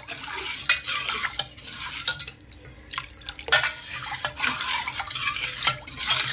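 Metal ladle stirring sugar water in a metal pot, with repeated swishing strokes and the ladle scraping and clinking against the pot's sides as the ground sugar dissolves.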